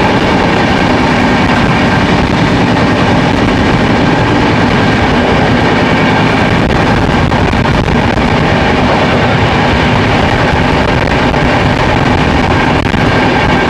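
Passenger train running at speed: a loud, steady rumble and rattle of the coach and its wheels on the rails, with a few faint clicks.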